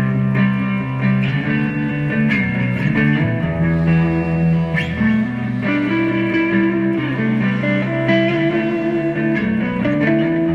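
Background music: guitar over a bass line, with notes that change every second or so.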